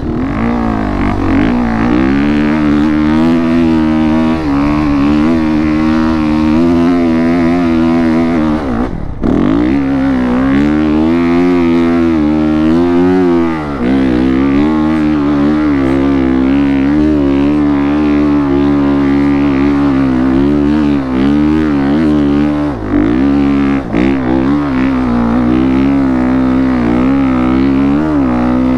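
Honda CRF450RX's single-cylinder four-stroke engine running hard under load while the dirt bike climbs a sandy hill. The throttle is briefly chopped about nine seconds in, and there are a few short dips later on.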